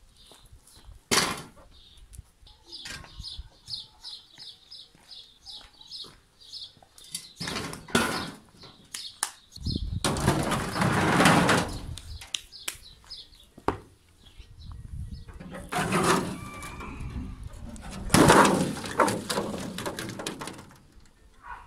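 Metal wheelbarrow parts, a steel tray and a tubular frame, being handled and set down on concrete, giving knocks and long noisy scraping clatters, the loudest around the middle and near the end. A small bird chirps rapidly, about four chirps a second, through the first half.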